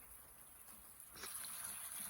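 Faint steady rain, a soft hiss that grows a little louder about a second in.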